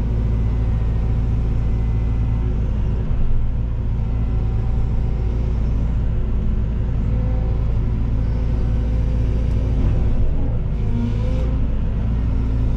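Cat 313 excavator's diesel engine running steadily under load, heard from the cab as the boom lowers and the bucket curls.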